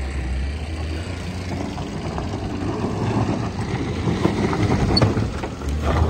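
Car engine running under load, a steady low drone with rough noise over it, as a car stuck with one wheel off the ground struggles for grip.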